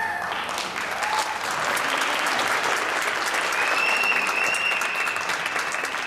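Audience applauding as the dance music stops, a dense patter of many hands clapping. A high drawn-out call from the crowd rides over the clapping about halfway through.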